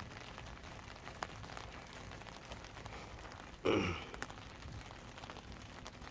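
A man's short voiced exhalation, falling in pitch, about two-thirds of the way in, as he strains to reel in a fish on a bent rod. Otherwise a faint hiss with light scattered ticks.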